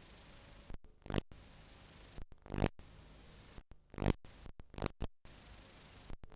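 Analog video static: a steady hiss broken about every second and a half by a brief dropout to silence and a loud crackling burst.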